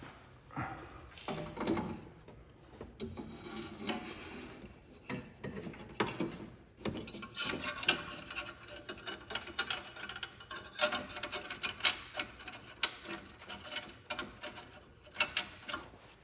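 Hand tools and metal exhaust parts clicking and knocking irregularly, with quick runs of clicks, as a catalytic converter with its O2 sensors fitted is worked into place under a Porsche 997.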